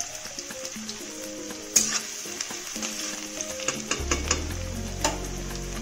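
Chopped garlic and ginger frying in hot mustard oil in a metal wok: a steady sizzle with scattered crackling pops, the sharpest about two seconds in, as a spatula stirs them.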